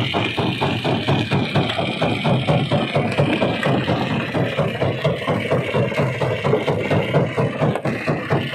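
Rock crusher running with a fast, steady knocking, about five knocks a second, over rattling stone and a constant machine noise.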